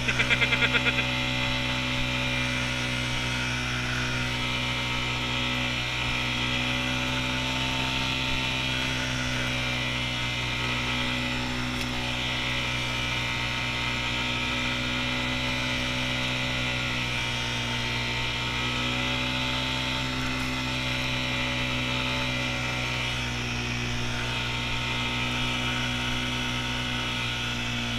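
ATV engine running steadily at cruising speed, a constant drone that barely changes in pitch. There are a few short, louder sounds in the first second.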